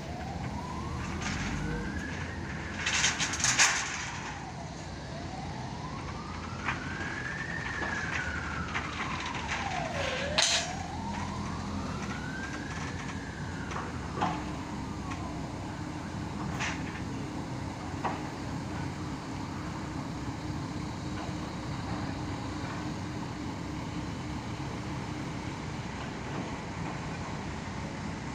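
A wailing siren slowly rising and falling, one sweep about every five seconds, over the steady low running of a mobile crane's engine. The siren stops about halfway through. A few sharp metallic knocks come in the first half.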